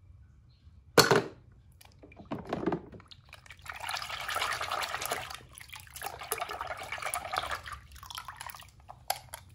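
Water splashing and sloshing in a small plastic tub as a hand dunks a die-cast toy car and swishes it around. There is a sharp splash about a second in, a smaller one soon after, then two longer spells of sloshing.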